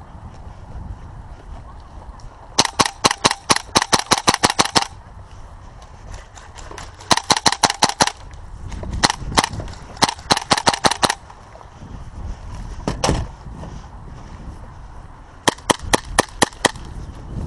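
Airsoft guns firing in rapid bursts of sharp shots, about six a second, in several strings. Fainter scattered shots come from other guns in between.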